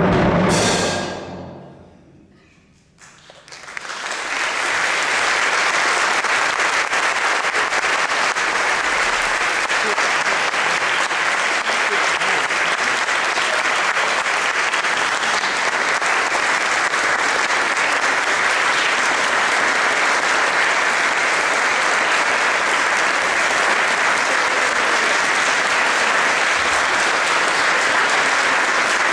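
Full orchestra's final chord ringing and dying away. After a brief hush, an audience applauds steadily and at length.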